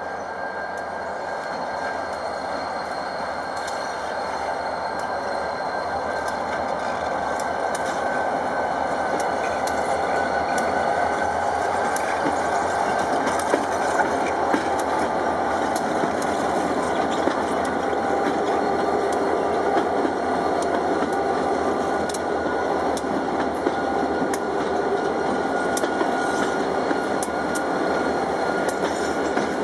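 Diesel freight locomotives approaching and then passing close by, running steadily and growing louder over the first several seconds. From about halfway on, sharp clicks come from the wheels on the rails as the units go by.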